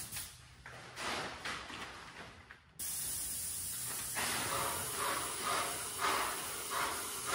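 Paint spray gun spraying lacquer onto a wooden door: a steady hiss that starts suddenly about three seconds in.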